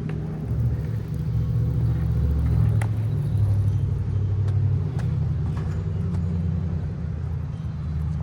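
Skateboard wheels rolling over pavement: a steady low rumble with a few faint sharp clicks.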